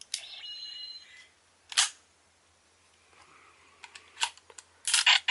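Plastic clicking and clatter of a Ranger Key being fitted into a Power Rangers Super Mega Force phone-style morpher toy. A brief high electronic tone sounds in the first second, a sharp click comes near two seconds in, and louder clicks come near the end.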